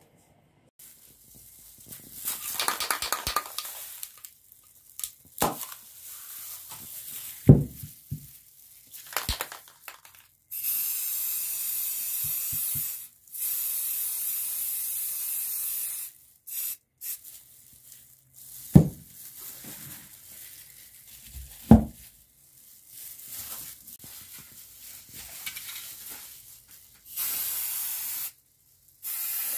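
Aerosol spray-paint can hissing in several bursts of one to three seconds each, with a few sharp knocks in between.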